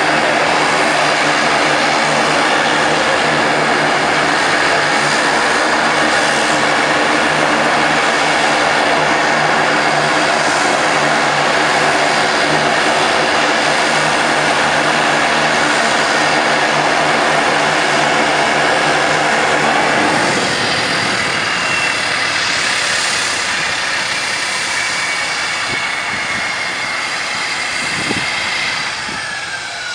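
Saab 2000's Allison AE2100A turboprop engines running at ground idle with a steady propeller drone. About twenty seconds in the drone drops away and a falling turbine whine follows as an engine spools down at shutdown.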